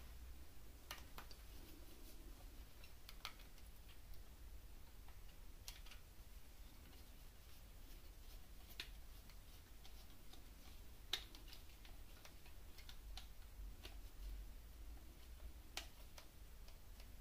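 Faint, sharp clicks and light taps every one to three seconds at irregular intervals over a low steady hum, one a little louder about two-thirds of the way through.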